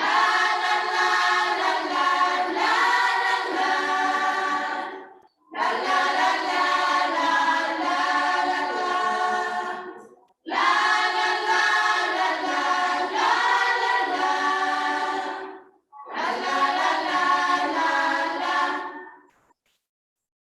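A choir singing in four phrases of about five seconds each, with a short break between each phrase.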